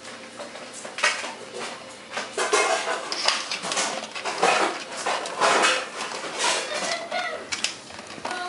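Large aluminium stockpot and its lid clattering and scraping as they are handled, in a series of irregular knocks and rustles.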